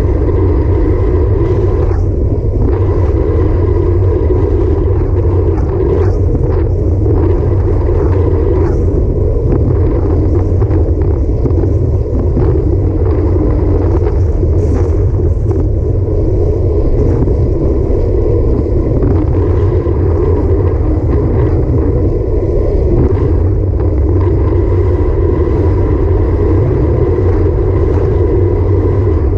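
Wind buffeting the microphone of a handlebar-mounted action camera on a road bike moving at about 23 mph, over the steady rumble of the tyres on rough asphalt, with scattered small knocks from bumps in the road.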